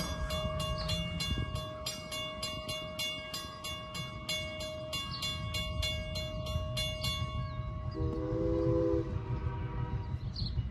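Railroad grade-crossing bell ringing about three strikes a second while the crossing gates lower, falling silent about 7 s in once the gates are down. About a second later an approaching train sounds one chord blast of its horn, lasting about a second.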